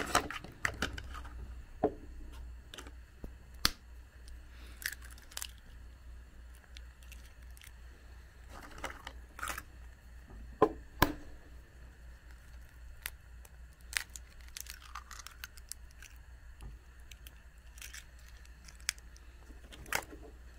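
Scattered sharp clicks and taps with a few short rustles of things being handled by hand, the loudest two clicks about ten seconds in, over a low steady hum.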